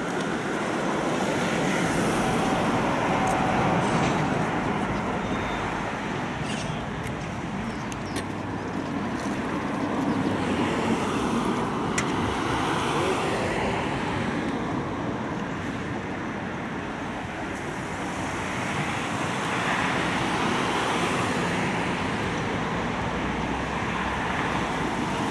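Distant, steady rumble of the Boeing 747SP's four turbofan engines at taxi power, swelling and fading slowly as the aircraft moves and turns, with a few faint clicks.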